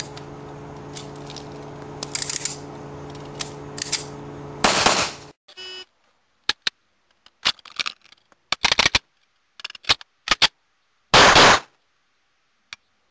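A 1911 pistol fired and worked through a double-feed malfunction clearance: a loud shot about five seconds in over a steady low hum, then a run of sharp clicks and cracks as the gun is handled, and another loud shot near the end.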